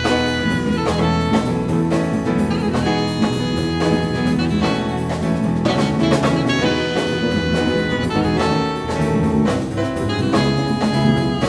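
Instrumental jazz band playing live: a saxophone holds long notes over drum kit, bass, keyboard and hand percussion.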